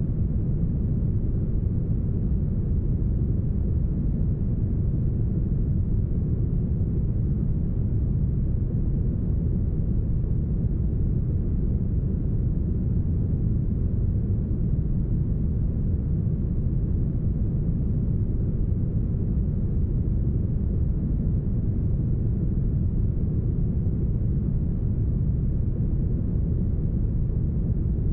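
Deep, heavily smoothed brown noise: a steady, even hiss with its weight in the low rumble and almost no treble.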